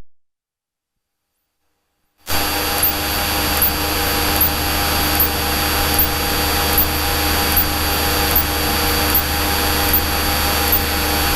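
Cabin noise of a small single-engine Cessna in flight: after about two seconds of silence, a steady loud engine and propeller drone starts suddenly and holds level, with faint high chirps repeating evenly through it.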